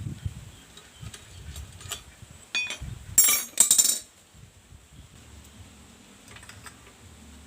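Small metal parts clinking and rattling as they are handled, with two louder rattles about three to four seconds in.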